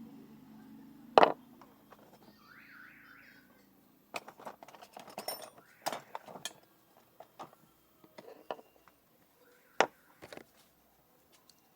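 Scattered clicks and knocks of hands and tools working on a floor fan, with a sharp click about a second in and another near the end. A low hum fades away over the first few seconds, and a short squeaky warble sounds about two seconds in.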